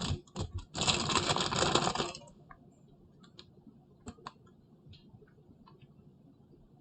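Kitchen handling noises while candy is dipped in melted chocolate with toothpicks: a few sharp clicks and taps, a dense scratchy noise lasting about a second and a half near the start, then scattered faint clicks.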